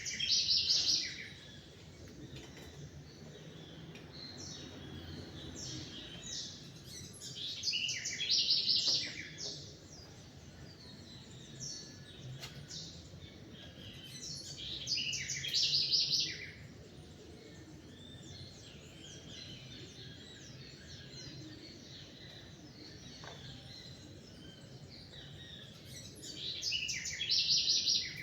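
Songbirds singing at dawn: one bird repeats a loud, high, rapid song phrase about every seven seconds, four times in all, with fainter chirps from other birds in between, over a low steady background hum.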